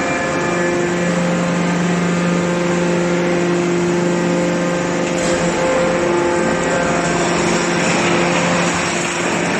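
Automatic can shearing baler running, its electric motor and hydraulic pump giving a steady hum and whine over a dense hiss.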